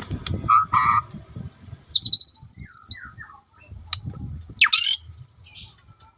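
A songbird singing in short phrases of chirps and harsh squawks, with a fast trill that falls in pitch about two seconds in and a sharp rising note near the end.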